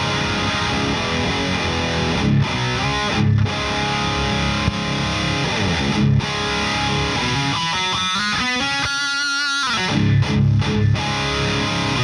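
High-gain distorted electric guitar playing metal riffs: a Kramer Vanguard through a Victory Super Kraken amp boosted by a Fortin Hex Drive, into a Jensen-loaded isolation cab. This is the plain base tone, with no presence or resonance pedal engaged. Low chugging riffs with short stops, and higher notes with vibrato about eight to nine seconds in.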